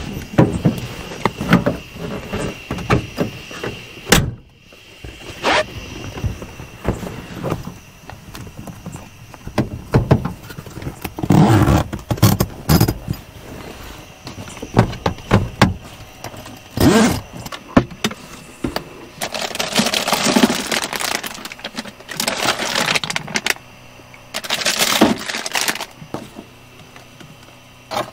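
Gear being handled: a string of knocks, clicks and thuds with two longer scraping, rustling noises, over a steady high-pitched background tone that stops a few seconds before the end.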